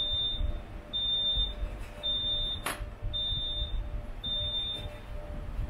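An electronic beeper gives five short, high, even beeps about a second apart, then stops near the end. One sharp click falls about halfway through, over a low steady hum.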